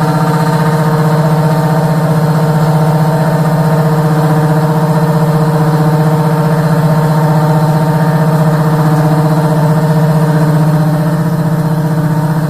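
Steady, loud electric machine hum at one fixed pitch that cuts off suddenly near the end.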